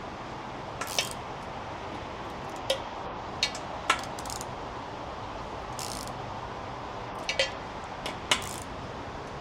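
Scattered sharp clinks and taps, about ten in all and spread irregularly, with two close together about three quarters of the way through, over a steady background hiss.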